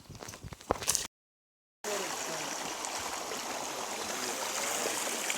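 A river flowing, a steady rush of water that sets in after a few sharp knocks and a brief dead gap near the start.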